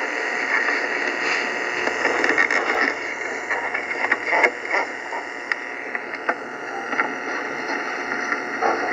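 A mono Radio Shack cassette player playing back an old recording through its small built-in speaker: a steady, thin sound with no deep tones and scattered clicks throughout.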